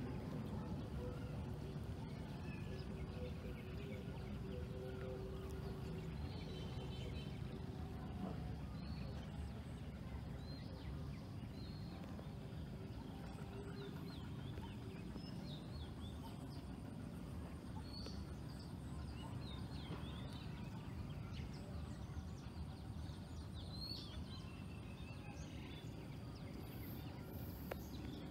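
Outdoor evening ambience with many short bird chirps scattered throughout over a steady low rumble, and a held humming tone in the first several seconds.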